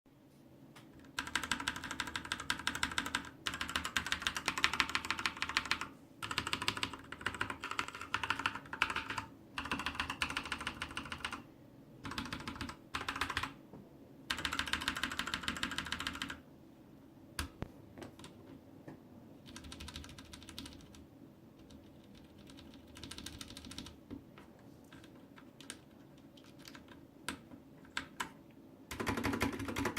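Typing on a Sharkoon Skiller Mech SGK 2 mechanical keyboard with Kailh Brown switches: fast runs of key clicks in bursts of a few seconds, then slower, softer single key presses from about halfway, with a fast run starting again near the end.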